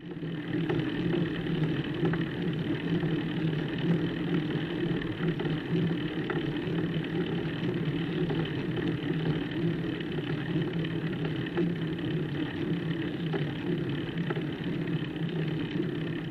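Steady rumbling noise picked up by a bike-mounted camera as the bicycle climbs slowly on tarmac: tyre, road and frame vibration on the camera's microphone.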